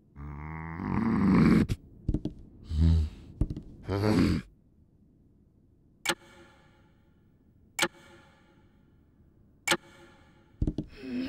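A cartoon character's wordless vocal grunts and groans, one long and two short. Then three sharp clicks that ring briefly, each about two seconds apart. Then another grunt near the end.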